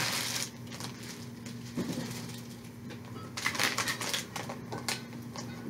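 Clear plastic wrapping crinkling and rustling as it is handled, in short bursts near the start and again about three and a half seconds in, over a faint steady hum.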